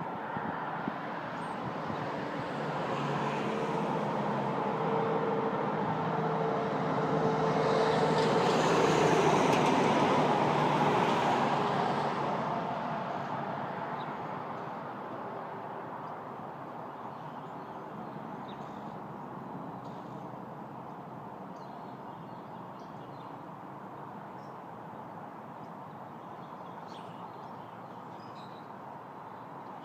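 A road vehicle passing by outside, its noise swelling to a peak about ten seconds in and fading away over the next few seconds. Faint bird chirps follow in the quieter second half.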